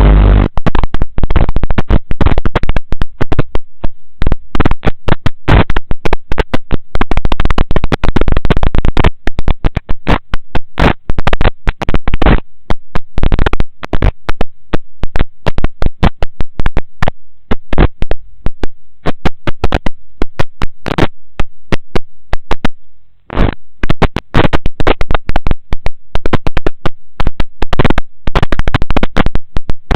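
Loud, dense, distorted crackling and popping that continues irregularly, with a brief dropout about 23 seconds in.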